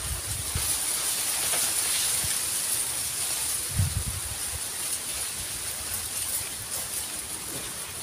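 A steady high-pitched hiss of outdoor ambience swells over the first couple of seconds and then slowly eases. A few short low rumbles of wind on the microphone come near the start and about four seconds in.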